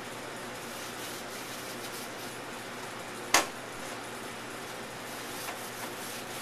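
Gloved hands rubbing dry spice rub into raw pork ribs on a cutting board, faint against steady background noise, with one sharp knock a little past halfway.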